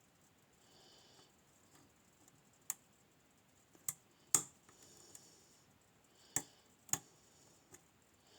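Lock-picking tools working a Nemef NF2 lock: about six sharp, separate metallic clicks a second or so apart, the loudest a little past halfway.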